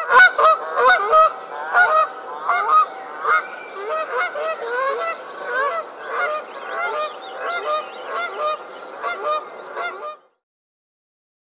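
Canada geese honking: a rapid series of loud honks, some overlapping, that cuts off suddenly about ten seconds in.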